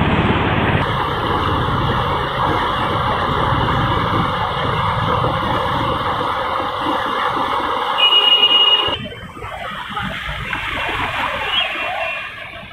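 Floodwater rushing and churning along a street: a loud, steady rush of water with a thin high tone running over it, the tone briefly louder near nine seconds in. Then the sound cuts to a quieter scene of a car driving through shallow floodwater.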